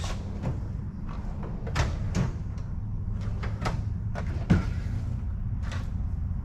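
Rummaging through parts in a workshop: scattered knocks, clicks and rattles, the loudest about four and a half seconds in, over a steady low hum.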